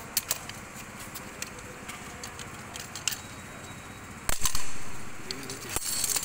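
Steel rotavator blades being handled on a concrete floor: small metal clicks and knocks, then a loud metal clank about four seconds in that rings and dies away over about a second.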